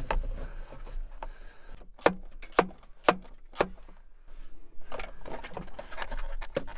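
Four sharp knocks about half a second apart, each with a brief low ring, followed by rustling and handling of parts during hands-on work on a car.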